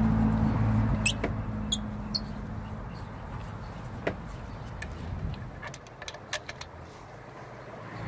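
Light metallic clicks, taps and small squeaks of a compression tester hose being fitted into a spark plug hole and its gauge coupled on, with a cluster of clicks near the end. A low steady hum fades out in the first three seconds.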